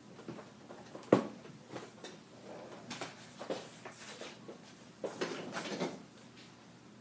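Articulating under-desk keyboard tray being moved and repositioned: a sharp knock about a second in, then a series of smaller clunks and clicks from the tray and its arm.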